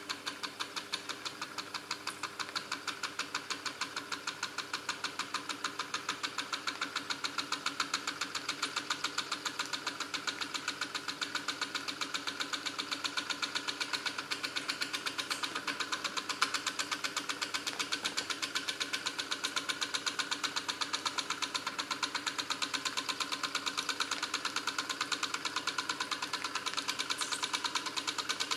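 SEL Junior 1530 toy steam engine running slowly, its small oscillating cylinder giving a quick, even beat of puffs and ticks, about three to four a second, growing a little louder over the first several seconds. It is running sluggishly on weak heat from an undersized burner.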